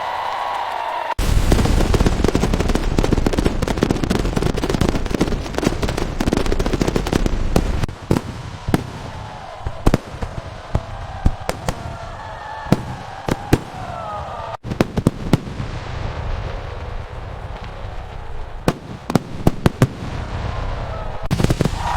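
Fireworks display: about a second in, a dense barrage of bangs and crackles with deep booms starts, then after about eight seconds thins to scattered sharp pops and crackles.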